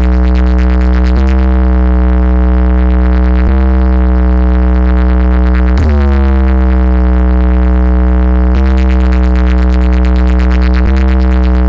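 Loud DJ remix music played over a DJ sound system: a continuous deep bass tone runs beneath a synth note that restarts about every two and a half seconds, dipping slightly in pitch as each one starts.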